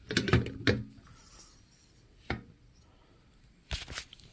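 Hard knocks and clicks of the RC Baja's petrol engine being set into and shifted against the chassis during a test fit: a cluster of knocks at the start, a single knock in the middle, and another short cluster near the end.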